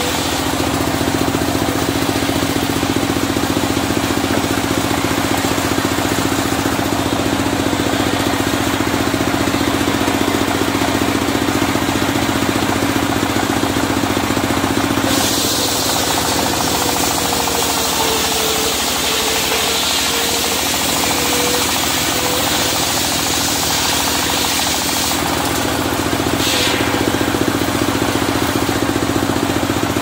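Engine of a portable circular sawmill running steadily. About halfway through, a higher hiss joins for roughly ten seconds while the engine note dips under load, as the blade cuts through a sengon log.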